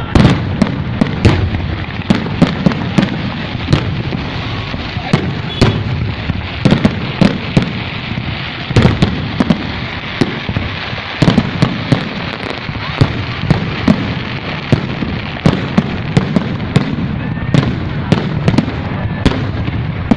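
Fireworks display: a rapid, irregular string of sharp bangs, several a second, over a steady hiss.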